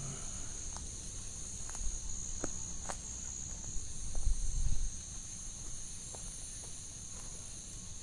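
Steady high-pitched chorus of night insects, with scattered sharp clicks. A low rumble of camera-handling noise about four to five seconds in is the loudest part.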